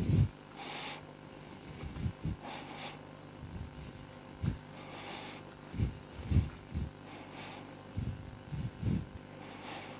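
A handheld whiteboard eraser wiped across the board in several short scrubbing strokes, with soft low thumps in between.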